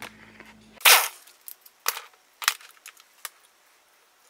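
Metal shop tools clanking against a chainsaw crankcase on a workbench: one loud clank about a second in, followed by a handful of sharper clicks and knocks as a tool is fitted onto the case.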